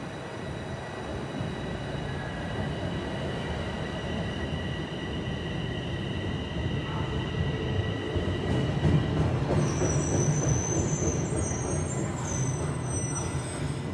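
Bombardier Toronto Rocket subway trains running through the station: a steady rumble of wheels on rail with thin high-pitched electrical whines. The rumble swells in the second half, when a higher, stepping whine sets in for a few seconds.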